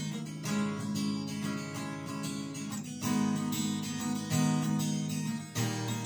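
Steel-string acoustic guitar strummed in a steady rhythm, chord after chord, with no singing: an instrumental break between verses of a song.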